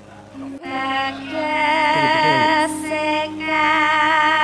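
A woman singing long held notes with a wide wavering vibrato, in the manner of a Javanese sindhen's vocal line, over a steady low instrumental tone. The singing starts about a second in and breaks off briefly near the middle.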